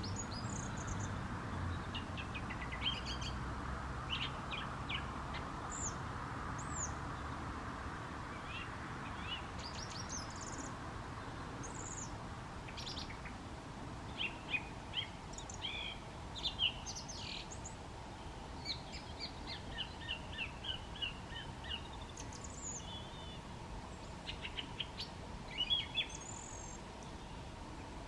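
Songbirds singing: a scatter of short chirps and whistled notes, some in quick repeated runs, over a faint steady background hiss.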